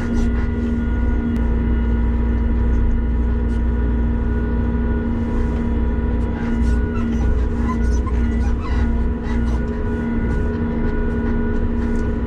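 Cat 930 wheel loader's diesel engine running steadily as the machine travels along the road: a low rumble with a steady hum over it, holding the same pitch throughout.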